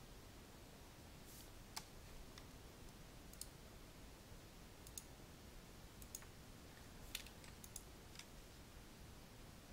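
Faint computer mouse clicks, about eight sharp single clicks at irregular intervals over a low room hiss.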